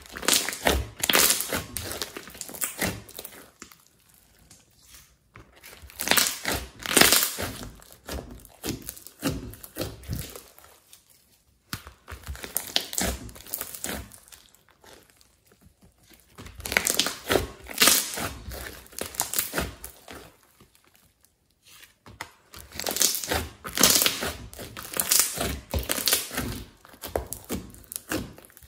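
Hands squishing, poking and stretching a glossy slime with small beads mixed in, making wet crackling and popping sounds in bursts of a few seconds with short pauses between.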